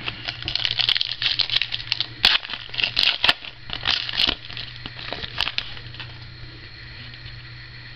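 A foil-wrapped 2011 Contenders football card pack being torn open and crinkled by hand, with a few sharp snaps. The sound dies away after about five and a half seconds.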